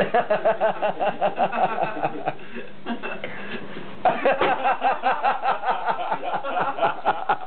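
Laughter in quick, rapid-fire ha-ha pulses. It breaks off for about a second and a half in the middle, then starts up again.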